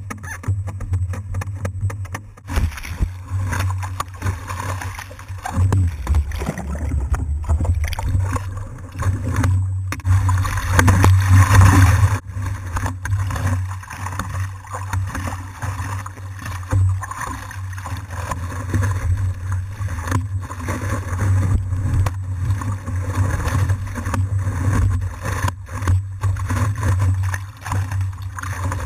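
Seawater splashing and slapping against a stand-up paddleboard riding downwind chop, picked up by a camera mounted on the board's nose. Underneath is a steady low rumble, with irregular knocks of water on the board. The splashing is loudest about ten to twelve seconds in.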